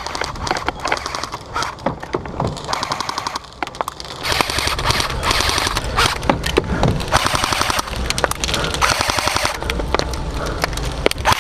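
Airsoft rifles firing in rapid full-auto bursts, a fast even clatter of shots, with several bursts from about four seconds in after scattered single shots. Wind rumbles on the microphone underneath.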